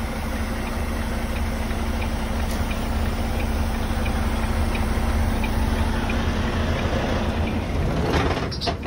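Volvo semi-truck's diesel engine idling steadily, heard from inside the cab, with a faint tick about twice a second.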